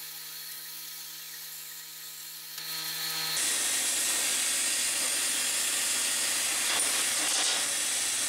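CNC plasma cutter running: a steady hum over a faint hiss, then about three seconds in a louder, steady hiss takes over.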